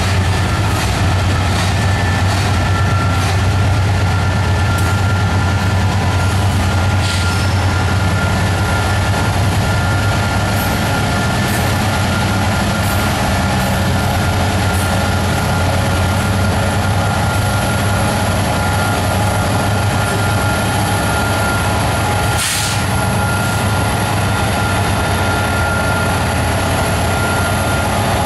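Ferromex diesel-electric freight locomotives passing close by in a consist, their engines running with a steady low drone. A thin, steady high whine runs over it, with scattered clicks from the wheels on the rail and one louder knock about three-quarters of the way through.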